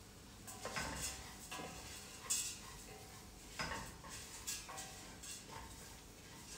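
Spoon knocking and scraping against a steel soup pot as the soup is stirred: a series of irregular clinks, several of them ringing briefly.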